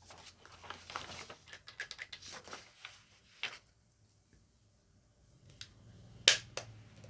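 Handling noises from a plastic battery-operated salt and pepper mill and its packaging: a run of rustles and light clicks, then a quiet pause and a few sharp clicks near the end, one of them the loudest sound.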